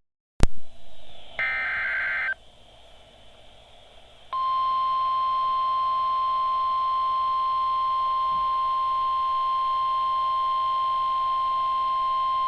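A click, then a roughly one-second burst of warbling digital data tones, the tail of an Emergency Alert System SAME header. After a short pause comes the NOAA Weather Radio 1050 Hz warning alarm tone, a single steady beep held about nine seconds before it cuts off sharply, signalling that a warning message follows.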